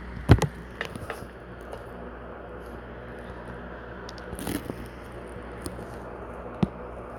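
Handling noises: a few small clicks and a brief scrape over a steady low hum, the loudest click just after the start.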